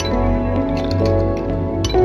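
Background music: sustained melodic notes that change every half second or so, with light percussive ticks.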